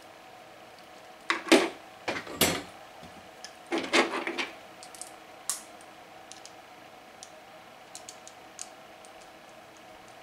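Hand tools and small screw parts being handled on a tabletop. There are several sharp clicks and rattles in the first half, then faint ticks as an M4 screw and lock nut are worked with a screwdriver and pliers.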